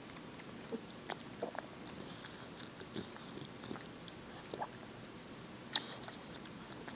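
A 12-week-old bulldog/pitbull mix puppy chewing and smacking its mouth in its sleep while dreaming: scattered soft clicks and smacks, with one louder click about six seconds in.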